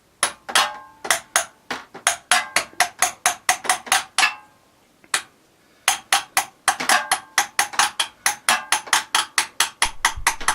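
Hammer blows on metal, struck in quick succession at about four a second in two runs with a short pause between them, each ringing briefly. It is hammering to break loose a part on the motorcycle that was fastened very tight.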